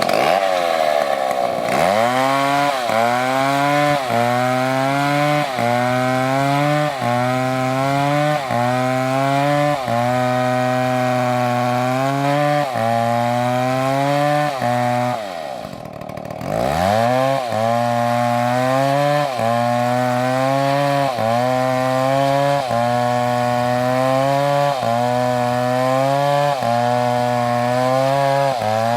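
Gasoline chainsaw cutting wood at high revs, its engine pitch dipping and recovering about every second and a quarter as the chain bites under load. About halfway through, the engine falls nearly to idle, then revs back up and keeps cutting.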